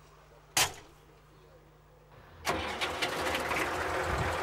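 A tractor cab door slams shut about half a second in. About two seconds later the tractor's air-cooled engine starts and keeps running.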